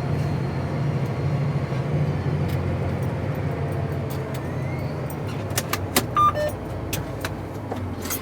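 Tractor engine running steadily while pulling a disc through a field, with a few sharp clicks about six seconds in.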